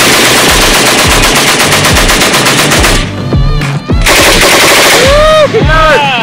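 Fully automatic fire from a tripod-mounted, belt-fed machine gun. A long burst lasts about three seconds, then after a short pause comes another long burst, over electronic music with swooping synth tones.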